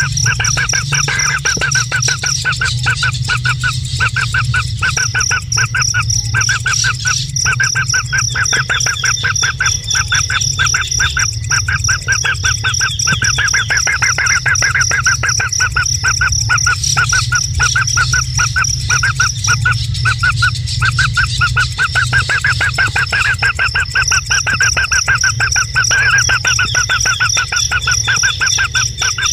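A bird calling in a fast, unbroken series of short repeated notes, over a high continuous whine that drops out for a few seconds now and then, and a low steady hum.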